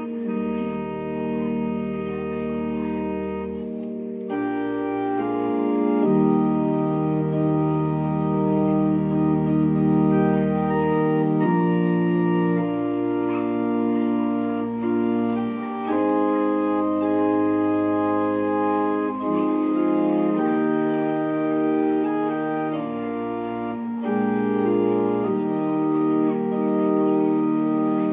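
Church organ playing a slow prelude: full sustained chords over deep pedal bass notes, the chords changing every second or few.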